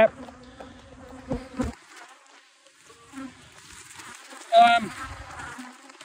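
A swarm of agitated honeybees buzzing close to the microphone, defending their hive: a steady hum with a few light ticks over the first couple of seconds. About four and a half seconds in, a single bee passes right by with a brief louder, higher buzz.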